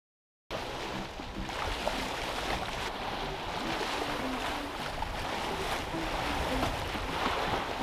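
Sea water rushing and splashing along a sailboat's hull as it sails, starting suddenly about half a second in. A scatter of short low notes sounds faintly over the rush.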